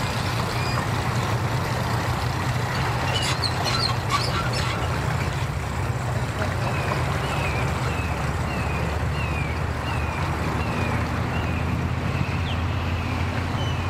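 Bass boat's outboard motor running at low throttle, a steady low hum, as the boat is driven in slowly. Over it, from about halfway in, a run of short high falling chirps comes about twice a second.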